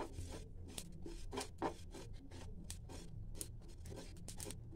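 Steel spoon scraping and stirring fennel and yellow mustard seeds across a dry non-stick tawa as they are dry-roasted: a run of short, irregular scrapes.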